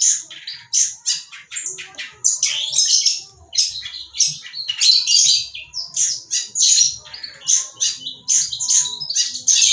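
Bird calling in a fast, unbroken string of short, harsh, high-pitched chirps and squawks, a few each second.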